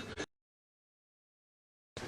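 Dead silence: the audio drops out completely after a brief tail of background noise in the first moment.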